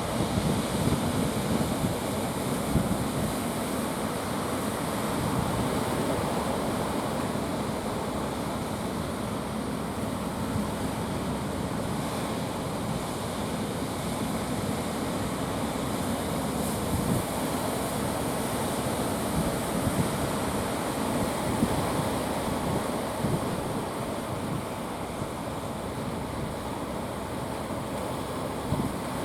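Steady wash of sea surf with wind gusting on the microphone.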